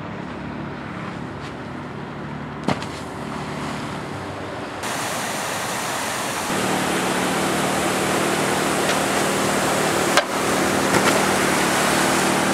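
Water pouring over a concrete weir spillway, a steady rushing roar that grows louder and fuller about five seconds in. A steady engine hum runs under it, most likely the rope winch pulling the wakeboarder, and there are a couple of sharp clicks.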